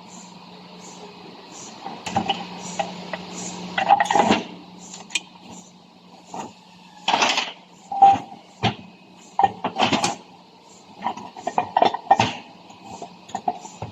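Irregular clinks and knocks of tools and metal parts being handled, over a low steady hum during the first half.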